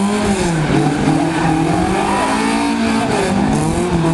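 Car engine revving hard in repeated rises and falls, as the car is slid around cones on a wet surface.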